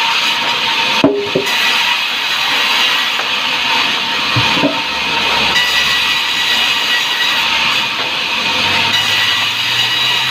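Sawmill saw running through timber, a steady loud hiss with a faint whine. A sharp knock comes about a second in, the loudest moment, and a smaller one about four and a half seconds in.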